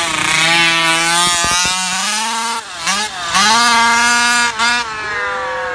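6S brushless electric RC car's motor and drivetrain whining at speed, the pitch climbing and holding, dipping briefly twice as the throttle is eased, then sliding down near the end as the car slows.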